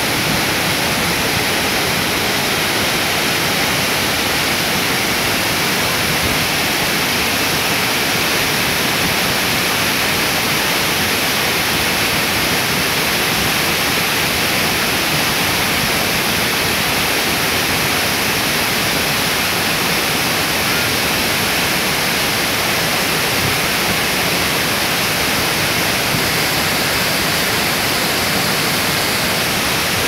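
Waterfall pouring over rock ledges and into a pool, heard close up: a loud, steady rush of water.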